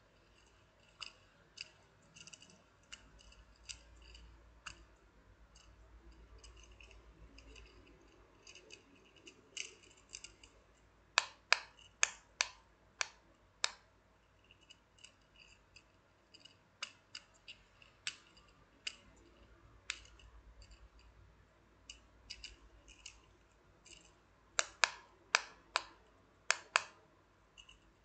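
Octopus Simple Dimple pop fidget spinner being handled, its silicone dimples pressed and clicking: sharp clicks and pops at an uneven pace, with louder runs of quick clicks near the middle and again near the end.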